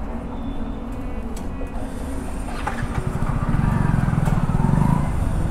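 A motor vehicle's engine running, getting louder from about three seconds in.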